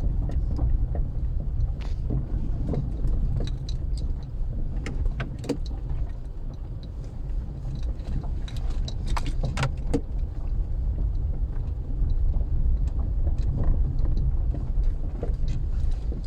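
Volkswagen Polo driving over rough road: a steady low road rumble with irregular knocks and rattles from the front suspension. These are the sign of worn-out anti-roll bar (stabilizer) links.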